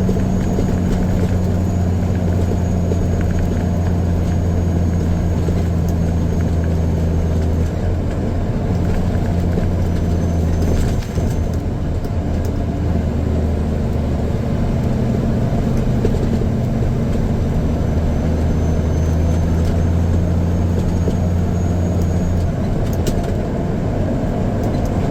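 A grain truck's engine running steadily with a low, even drone, its pitch shifting slightly a few times.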